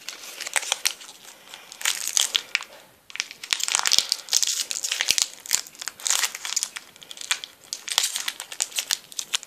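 Foil Pokémon card booster pack wrapper crinkling as it is handled and opened, in irregular crackly bursts that grow denser about three seconds in.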